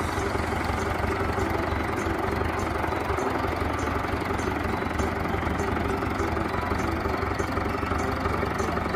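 Wheeled excavator's diesel engine running steadily while it digs and swings soil.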